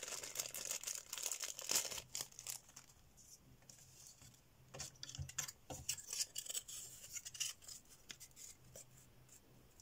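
Clear plastic parts bag crinkling as it is handled and emptied, for about the first two and a half seconds. Then a few light clicks and taps of thin wooden kit pieces being handled on a cutting mat.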